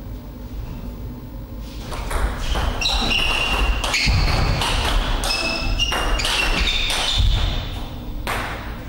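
Table tennis rally: the ball clicking off the paddles and the table again and again, starting with the serve about two seconds in and stopping near the end. Short high squeaks of shoes on the court floor come between the hits.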